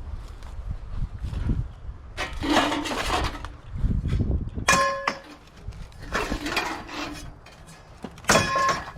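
Scrap metal and junk being handled and moved: rattling and scraping in three stretches, with a short ringing metallic clink about five seconds in and another near the end.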